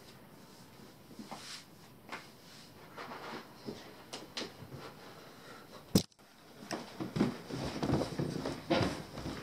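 Soft rustling and shuffling of a person moving about on a carpeted floor, with a few light knocks. About six seconds in there is a sharp click and a brief dropout, then louder rubbing and knocking as the camera is grabbed and carried.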